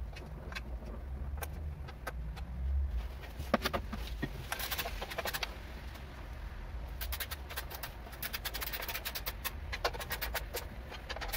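Scattered small clicks, taps and light rattles of hand tools and wires being handled, with runs of quick clicks around the middle and toward the end.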